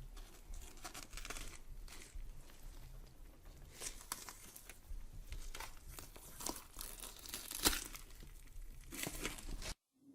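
Horror sound effect of irregular crackling, crunching and tearing noises over a low rumble, with a sharper crack a little after halfway, cutting off suddenly shortly before the end.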